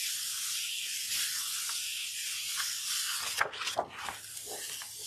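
A hand rubbing a sheet of paper against a paint-covered gel printing plate: a steady papery swish. A little past three seconds in, the paper is peeled up off the tacky plate with a few sharp crackles.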